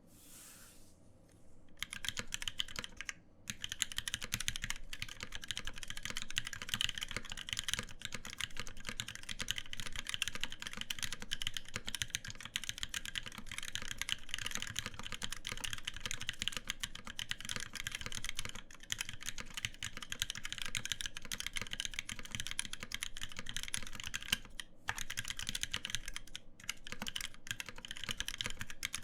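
Fast, continuous typing on an Iron165 mechanical keyboard with lubed NovelKey Cream linear switches, a copper plate and KA1953 keycaps, built without a case liner. The keystrokes start about two seconds in and run together densely, with short pauses about a second later and again near the three-quarter mark.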